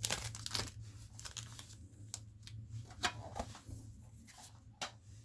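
Foil trading-card booster packs being handled. There is a burst of crinkling and rustling at the start, then scattered light clicks and rustles of wrapper and card.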